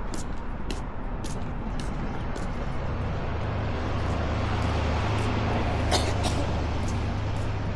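A vehicle engine rumbles past in traffic, building from about three seconds in and loudest near the end, over a steady outdoor noise. Footsteps tap about twice a second early on.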